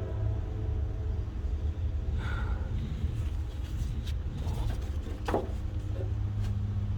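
Low, steady rumble of a passing train, with a few light clicks and knocks from hand work on the hose.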